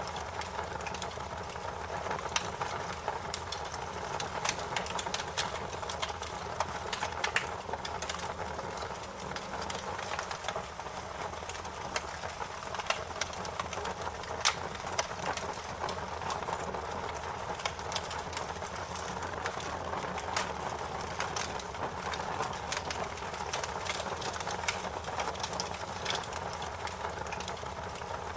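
Fire crackling: frequent irregular sharp pops and snaps over a steady hiss.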